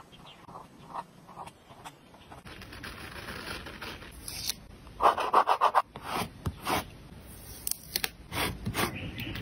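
Close-up paper-craft sounds: a brush pen's soft strokes across journal paper, then rubbing and scratching on paper with a loud, fast scratchy run about five seconds in, and crackles near the end as a sticker is peeled off its sheet.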